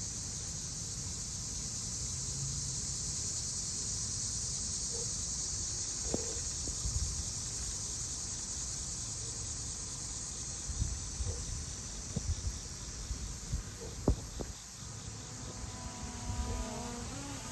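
Steady, high-pitched chorus of insects, with scattered low bumps and a few sharp clicks in the second half. A rising whine comes in near the end.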